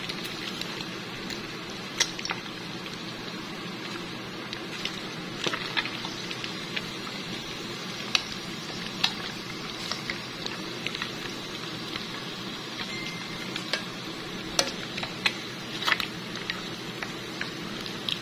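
Pandan-leaf-wrapped chicken deep-frying in hot oil: a steady sizzle with sharp pops and crackles scattered through it.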